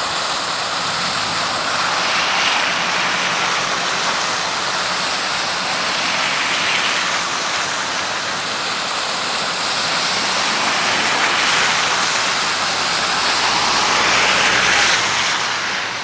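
Floodwater of a normally dry desert river rushing in a steady wash, swelling slightly a few times.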